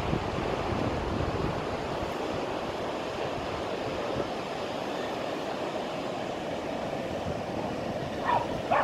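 Surf breaking on a sandy beach: a steady, even rush of waves. Near the end come two short, sharp, pitched sounds that bend in pitch.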